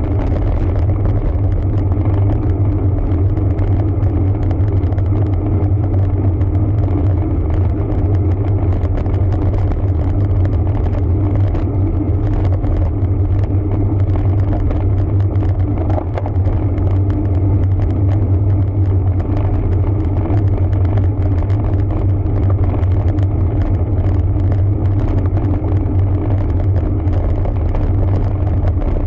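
Steady low rumble of wind and road noise on a bicycle-mounted camera while riding a road bike, unbroken throughout.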